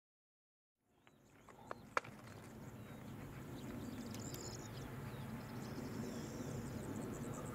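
Silence for about a second, then open-air countryside ambience fades in: a steady low rumble with faint bird chirps and two sharp clicks about two seconds in.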